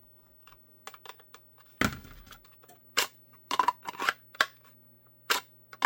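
A string of sharp, separate clicks and knocks from a Kydex holster being handled, its retention adjusted and a pistol test-fitted. A faint steady hum runs underneath.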